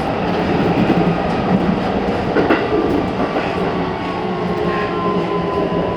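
Keikyu New 1000 series electric train heard from inside the car, running with steady rolling noise and a few wheel clicks. A motor whine falls slowly in pitch from about halfway, as the train slows on the approach to a station.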